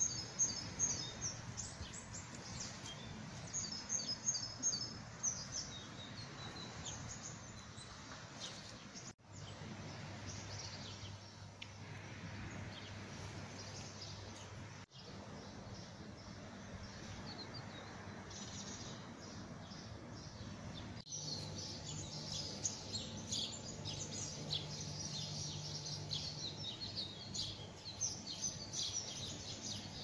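Small birds chirping and singing in quick, high twittering calls, thickening into a busier chorus about two-thirds of the way in, over a faint steady low hum. The sound cuts out abruptly for an instant three times.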